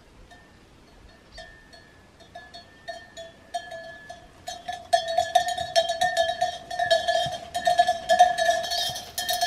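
Livestock bells clanking from an approaching herd, faint at first and much louder from about five seconds in.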